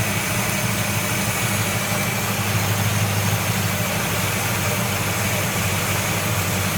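1970 Buick Wildcat's V8 idling steadily while the idle on its Quadrajet carburettor is being adjusted.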